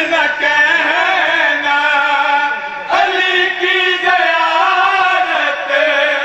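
A man's voice in a zakir's chanted majlis recitation, amplified through a microphone. He holds long, wavering sung phrases, with a short break about three seconds in.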